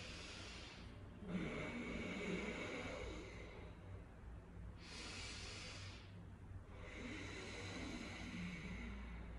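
Deliberate snoring with the mouth closed, as a practice exercise: about four slow, faint breaths drawn and let out through the nose, some with a low snoring rattle.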